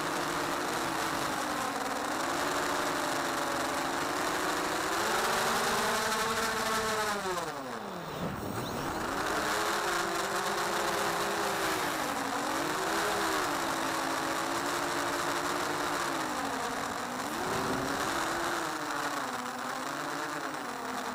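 Model aircraft's motor and propeller heard from the onboard camera, a buzzing whine whose pitch rises and falls with the throttle. About seven seconds in, the pitch drops steeply almost to nothing, then climbs back and keeps wavering, with a steady rush of air over the microphone.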